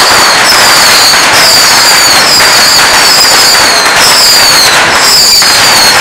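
A dense, continuous barrage of bottle rockets being fired en masse, as at a beehive rocket launch: unbroken crackling, hissing and popping, with high whistles sliding down in pitch about once a second.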